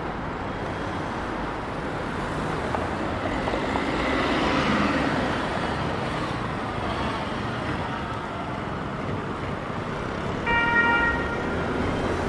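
Street traffic noise with a vehicle passing about four to five seconds in, then a short single horn beep near the end.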